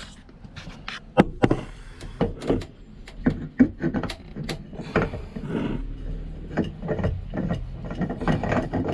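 A new spin-on fuel filter water separator being turned by hand onto its mounting head, giving irregular clicks, taps and light scraping as the canister turns and knocks against the bracket and hose.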